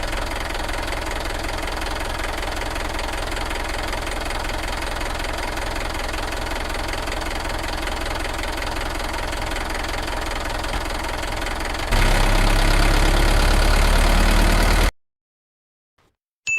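Engine running steadily. About twelve seconds in it gets louder, then it cuts off abruptly about three seconds later.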